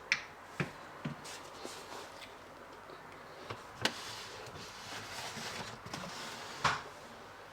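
Fridge trays and shelves being taken out and handled: a few separate knocks and clatters, the loudest about four seconds in and near the end.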